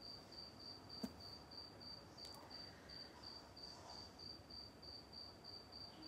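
A faint cricket chirping steadily, about three chirps a second, with one soft click about a second in.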